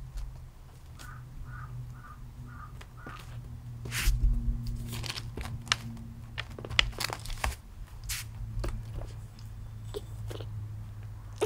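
Rustling and light clicks and knocks, busiest in the middle, as a young kitten pushes between tripod legs and a camera against plastic packing, over a steady low hum.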